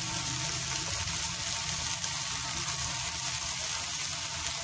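Chicken strips with carrots, capsicum and peas sizzling steadily in oil in a frying pan.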